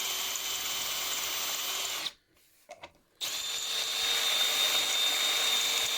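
Power drill running steadily in two runs with a pause of about a second between them, drilling out a stuck wood screw.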